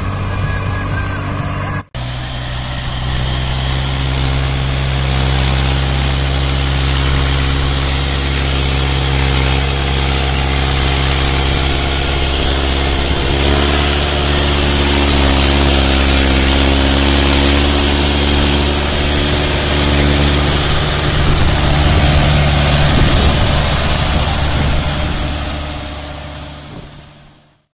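Mahindra 575 DI tractor's diesel engine labouring steadily under heavy load as it hauls a trolley heaped with sand through loose sand. There is a brief break about two seconds in, and the sound fades out at the end.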